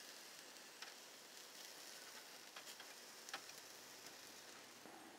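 Faint, steady sizzle of oiled white asparagus spears grilling on a small tabletop charcoal grill, with a few light clicks scattered through it.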